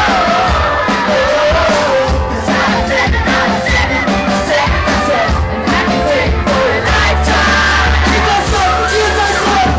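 Live pop music played loud by a band, with a singing voice and a heavy bass, over a crowd yelling and cheering.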